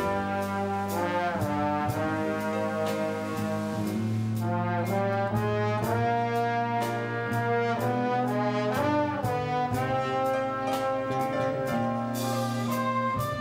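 A big band's brass section, trombones and trumpets, plays sustained chords with pitch bends and swells. A light cymbal tick keeps time about twice a second.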